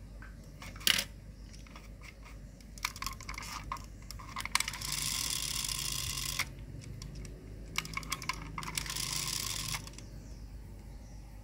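Handling noise: one sharp click, then scattered small clicks and two stretches of rubbing, scraping hiss, each lasting a second or two.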